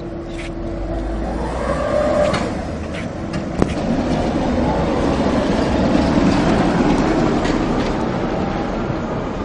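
Red articulated tram rolling past on street rails, a steady rumble that swells as it goes by, with one sharp click about three and a half seconds in.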